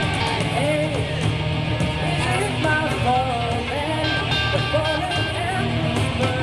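Live rock band playing: electric guitars, bass and drum kit, with a lead vocalist singing a melody over them from about half a second in.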